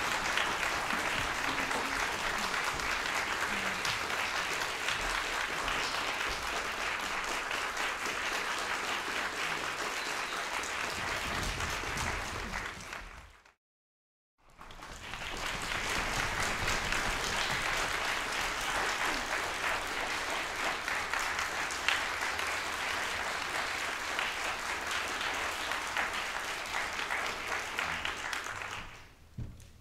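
Concert audience applauding with dense, steady clapping. It cuts to a second of silence about halfway through, comes back at full strength, and dies away near the end.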